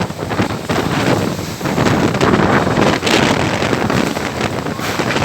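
Strong storm wind gusting and buffeting the microphone in loud, uneven rushes.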